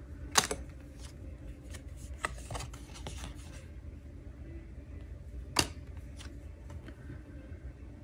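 Handwritten message cards being handled and flipped: two sharp card snaps about five seconds apart, with softer rustling and small ticks of cards sliding between them. A low steady hum runs underneath.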